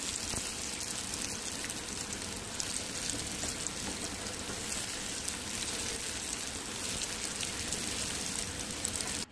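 Cornflake-coated egg fingers sizzling as they fry in hot oil in a pan: a steady crackling hiss that cuts off suddenly at the end.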